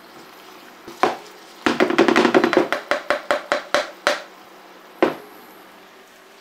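A wooden spatula scraping and knocking against a frying pan as shredded greens are stirred and tossed. There is a single knock about a second in, then a quick run of clattering strokes lasting about two and a half seconds, then one more knock near the end.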